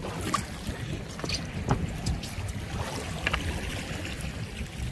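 Water splashing and lapping along the side of a boat hull over a steady low rumble, with a few short sharp clicks.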